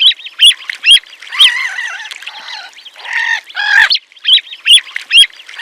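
Grebe calling: a run of short, sharp, high-pitched calls broken by a few longer, wavering calls.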